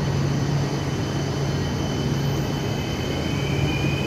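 Polregio regional electric multiple unit moving past close by along the platform: steady hum of its electric drive over rolling noise, with a faint high whine near the end.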